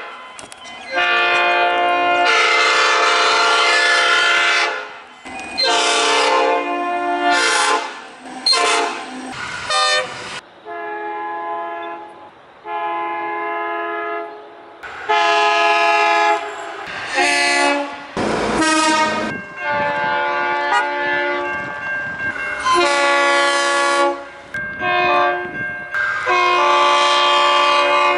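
A string of Australian train horns: one blast after another from several different trains, some short toots and some held for up to about four seconds, each a loud multi-note chord.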